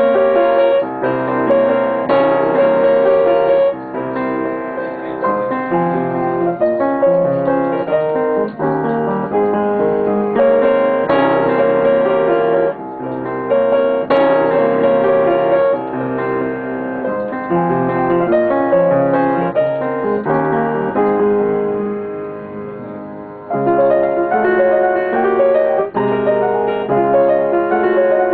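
Solo piano playing: chords and running notes one after another with hardly a pause. The playing grows softer a little past twenty seconds, then comes back loud about three seconds later.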